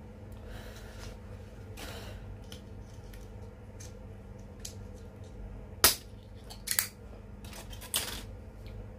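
Eating utensils clinking and scraping on a plate of chicken machboos, with three sharp clinks in the second half, the loudest about six seconds in. A steady low hum runs underneath.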